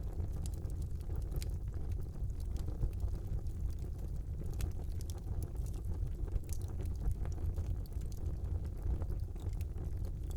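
Wood fire burning in a fireplace: a steady low rumble of the flames with frequent small crackles and pops.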